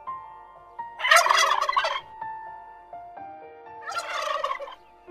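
Turkey gobbling twice, each gobble a rapid rattling call about a second long, the first about a second in and the second near the four-second mark.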